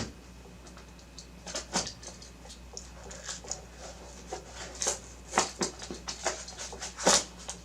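Plastic and cardboard packaging crinkling and clicking in irregular bursts as replacement GPU fans are unwrapped.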